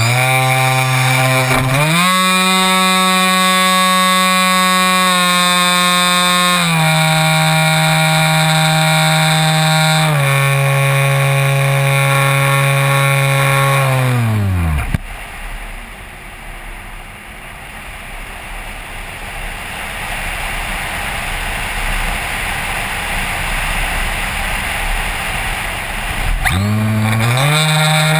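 Multiplex Xeno RC plane's electric motor and propeller, heard close from on board: a steady whine that steps up and down with the throttle, then winds down and stops about 15 seconds in. Only wind rushing past is heard while the plane glides with the motor off, until the motor spins up sharply again near the end.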